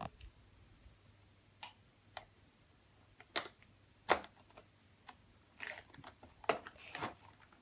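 Scattered small clicks and taps at irregular intervals, about ten in all, as make-up items are handled. The sharpest tap comes about four seconds in.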